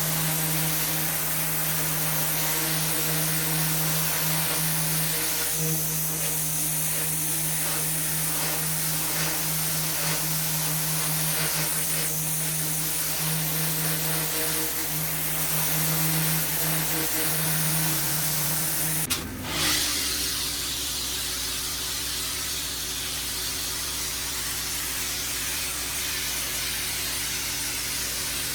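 Pressure washer running, a steady motor hum under the hiss of high-pressure water spray. About two-thirds of the way through the sound briefly dips, then carries on with a changed hum pitch and less hiss.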